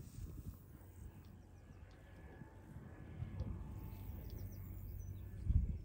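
Outdoor ambience: wind rumbling on the microphone, with faint, short high bird chirps scattered through it.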